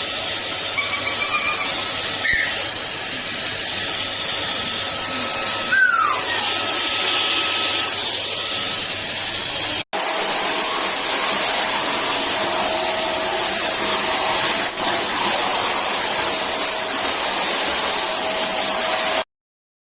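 QuickFix 20-litre 1600 W wet/dry vacuum cleaner running steadily, a loud even rush of motor and airflow noise with a faint high whine. It breaks off for an instant about ten seconds in, resumes at once, and cuts off suddenly near the end.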